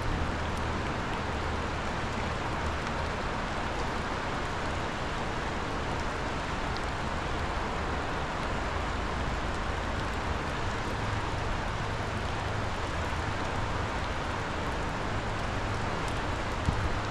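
Steady rushing noise of a flooded, fast-running river, with a low steady hum underneath.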